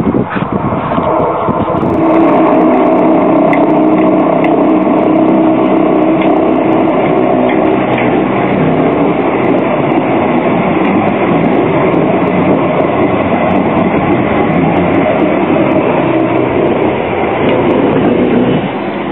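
CAF Urbos 3 low-floor electric tram running past close by: wheels rolling on the rails with a steady electric hum, and scattered clicks. The sound drops away sharply near the end.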